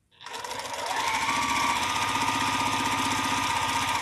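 Juki electric sewing machine stitching a seam through fabric: the motor whine rises as it speeds up over the first second, then runs at a steady fast stitch rate and stops near the end.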